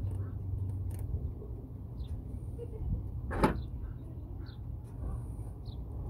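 A single sharp click about three and a half seconds in, over a steady low rumble: the plastic connector of a BMW N52 engine wiring harness snapping into place as it is pushed home.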